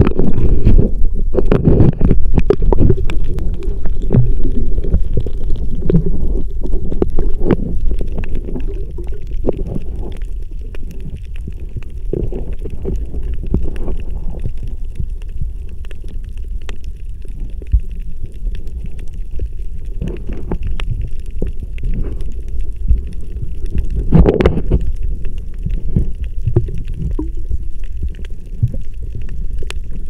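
Muffled low rumble and sloshing of seawater heard through a camera microphone held underwater, with many scattered small clicks and knocks. Louder in the first half, with a brief surge late on.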